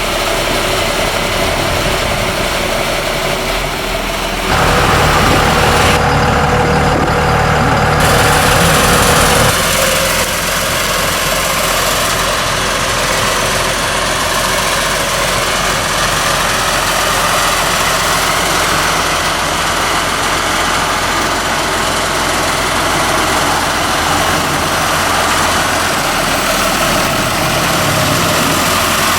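A heavy machine's engine running steadily. About four seconds in it grows louder for roughly five seconds, as if working under load, then drops back to a steady run.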